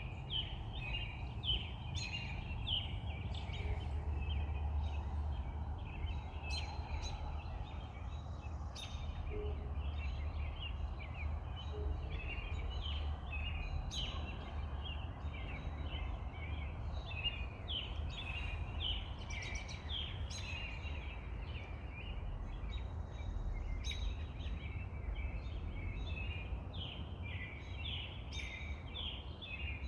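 Many small birds chirping and chattering continuously in a dense evening chorus, over a steady low rumble.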